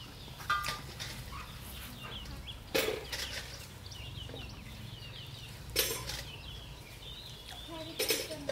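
Domestic chickens clucking and peeping, with four short, louder sounds about three seconds apart and faint high chirps in between.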